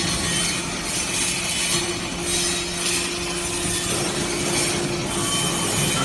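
Hydraulic briquetting press for metal chips running: a steady hum from its hydraulic pump unit over a rough, hissing mechanical noise, with a second, higher steady tone coming in about two seconds in and dropping out near five seconds.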